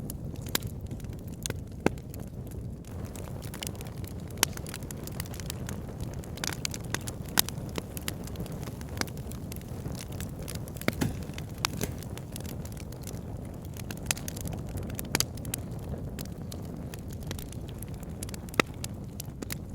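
Wood fire in a log burner crackling, with a steady low rumble of flame and irregular sharp pops and snaps from the burning logs, a few louder than the rest.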